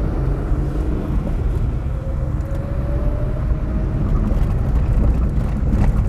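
Vehicle driving, heard from inside the cabin: a steady low rumble of engine and tyres on the road, with a few sharp ticks near the end.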